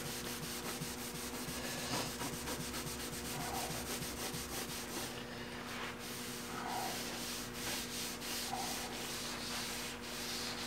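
Stain-soaked rag rubbed back and forth over the veneer plywood panel of a wooden cabinet door, working stain into the wood in quick even strokes, about four a second, with a short lull about halfway. A steady low hum runs underneath.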